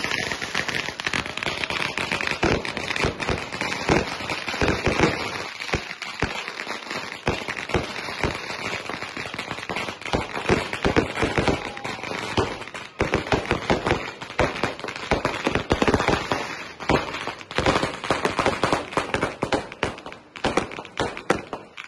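Fireworks going off: a fountain firework hissing and spraying sparks amid a dense, irregular run of rapid pops, bangs and crackles from firecrackers and aerial shells.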